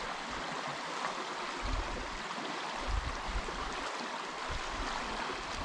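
Small stream flowing and rippling over shallows, a steady watery rush, with a few brief low bumps.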